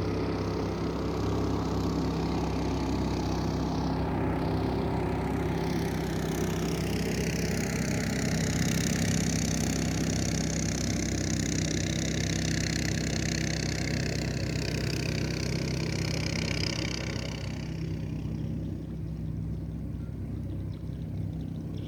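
Small motorboat engine running at a steady, unchanging pace. A rushing hiss rises over it from about six seconds in and fades near the end.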